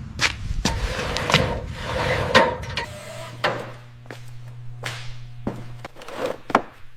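Irregular knocks, clicks and clatter, like hard objects or tools being handled. A steady low hum runs through the middle.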